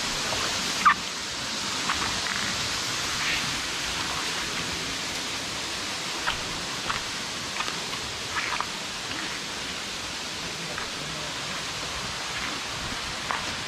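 Steady hiss of rushing water from a forest waterfall and stream, with about ten short, sharp ticks scattered across it. The loudest tick comes about a second in.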